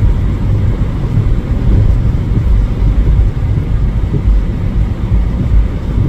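Wind buffeting the microphone: a loud, steady low rumble that rises and falls irregularly.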